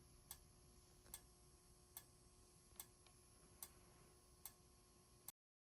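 Faint, evenly spaced ticks, about one every 0.8 seconds, from a fire alarm strobe firing with each flash. The sound cuts off abruptly near the end.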